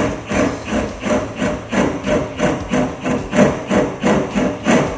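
Cordless drill with a large 17/32-inch bit cutting into a Jeep's sheet-metal quarter panel, the trigger pulsed in short bursts about three times a second to keep the bit from biting in and tearing the metal.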